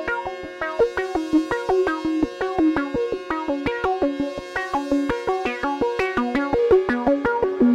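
AE Modular synthesizer patch playing a fast sequence of short, filtered sawtooth notes that step up and down in pitch, about five a second, each with a click at its start, over a held pad.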